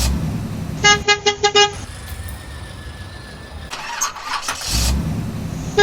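Vehicle horn sounding a quick run of about five short toots, which comes twice. Before each run a rumbling, engine-like swell rises and falls.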